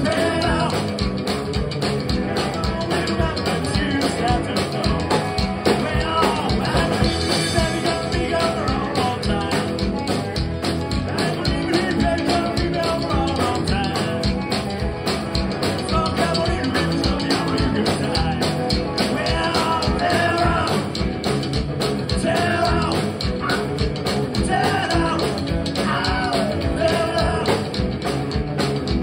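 Rockabilly band playing live: upright bass, electric hollow-body guitars and drums driving a fast beat, with singing at times.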